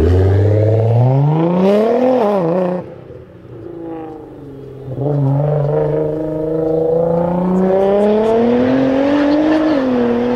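Tuned Nissan R35 GT-R's twin-turbo 3.8-litre V6 accelerating hard, its engine note rising for about three seconds, then falling away. After a quieter couple of seconds it pulls again with a steadily rising note, dipping briefly for an upshift near the end.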